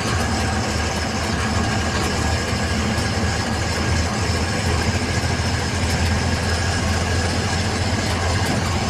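Truck engine running steadily while the truck is driven, with a strong low rumble and an even rushing noise over it.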